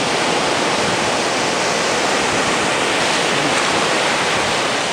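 Sea surf breaking and washing up a sandy beach: a steady, loud rushing.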